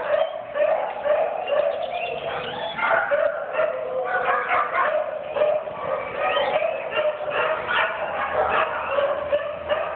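Dogs barking and yipping in a dense, overlapping run with hardly a break.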